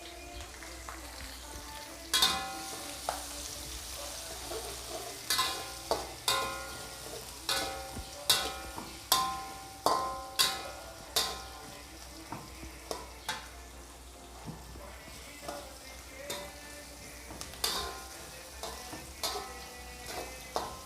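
Garlic, onion and curry leaves frying in hot oil with a steady sizzle, while a spatula stirs and knocks against the metal pan, each strike ringing briefly.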